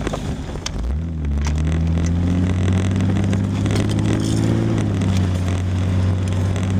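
Car engine with a straight-piped exhaust pulling away about a second in, its pitch rising steadily for a few seconds, then dropping a little and holding at a steady cruise.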